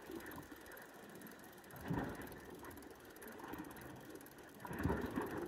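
Faint winding of a fishing reel as a hooked fish is reeled in. There is a dull thump about two seconds in and a louder cluster of low thumps near the end.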